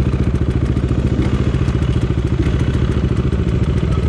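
Enduro motorcycle engine running steadily at low revs, its pitch holding level with a fast even pulse.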